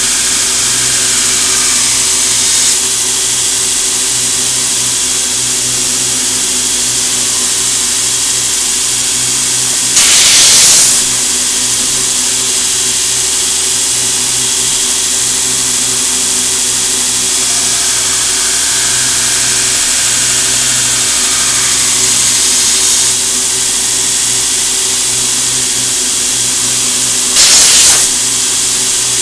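Belt grinder running steadily with a hum and hiss while a CPM 15V steel knife blade is ground on the belt, at the start and again for a few seconds about two-thirds of the way in. Two short, louder blasts of compressed air from a blow gun, about ten seconds in and near the end.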